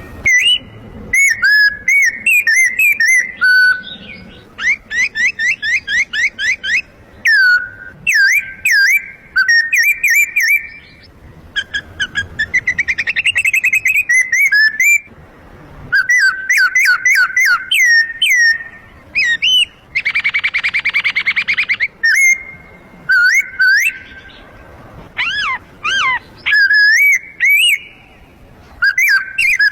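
A man imitating birdsong by whistling with his mouth: loud, quick phrases of sliding chirps and fast trills, with a buzzier warble about twenty seconds in and short pauses between phrases.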